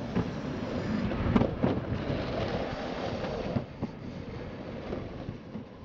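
Skateboard wheels rolling on a concrete sidewalk: a steady rough rumble with sharp clacks as the wheels cross the cracks between slabs, growing quieter a little over halfway through.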